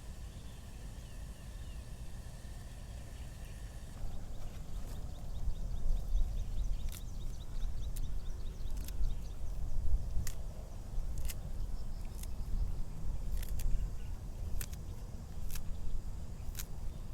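Outdoor ambience: a steady low rumble, with faint high chirps and a dozen or so sharp, irregular clicks from about five seconds in.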